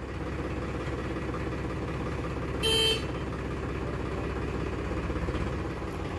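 Powertrac Euro 50 tractor's diesel engine running steadily at low revs, with one short horn toot about halfway through.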